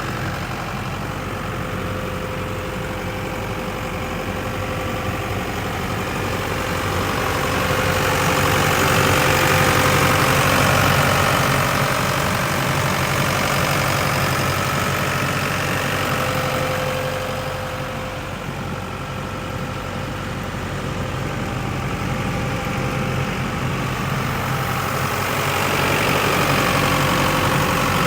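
Engine of a Chicago Pneumatic GPS400 portable air compressor running steadily at idle, growing louder for a few seconds about a third of the way in and again near the end.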